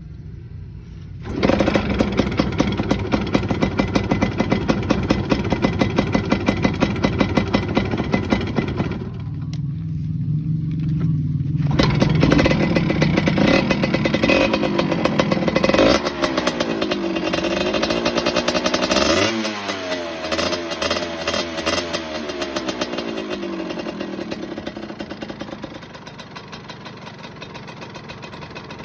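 Yamaha F1ZR 110 cc two-stroke single-cylinder motorcycle engine, fitted with a new PE carburettor, being revved. It jumps from a low rumble to a loud, fast-pulsing run about a second in and dips briefly near the middle. It then climbs again with rising and falling pitch, drops off sharply about two-thirds through, and settles to a quieter run.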